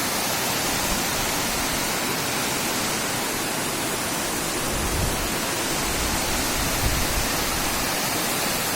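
Waterfall pouring down a hillside, a steady rushing hiss of falling water.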